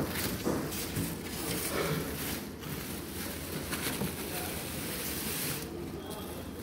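Packaging rustling and being handled with irregular scrapes and light knocks as a boxed microwave oven is unpacked.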